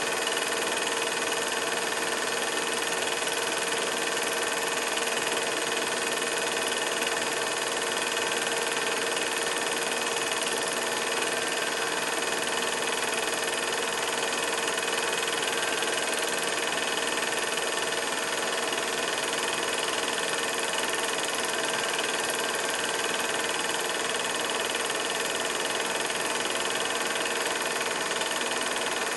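A steady, unchanging hum and hiss with several constant tones, like machine noise.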